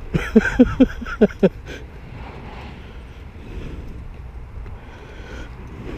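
A man laughing in about five short bursts, followed by a low steady rumble of wind on the microphone.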